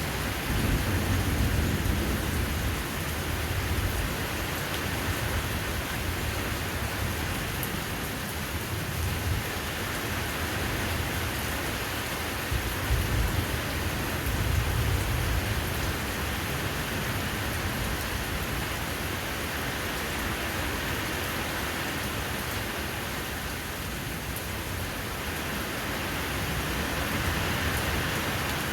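Steady rain falling, with low rumbles of thunder about a second in and again around the middle.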